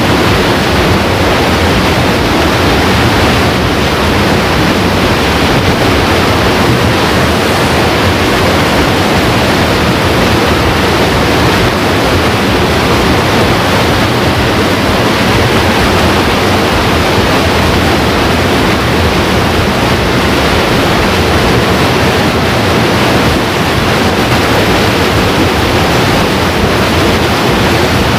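Steady, loud rushing of a muddy river's flowing water, unbroken throughout.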